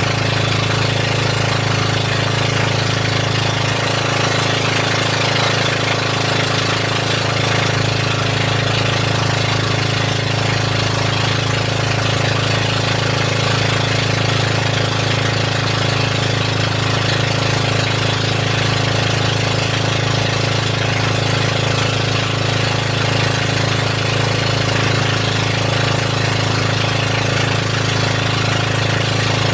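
Boat engine running loud and steady at constant speed, an unbroken low drone with a rapid chugging beat.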